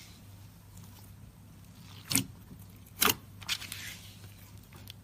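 Slime being worked by hand, with a few sharp clicking pops, three of them about a second apart, over a low steady hum.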